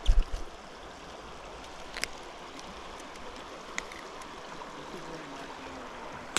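Steady rush of flowing river water, with a few low knocks at the start and two sharp clicks, about 2 and 4 seconds in, as a small bass is handled and unhooked.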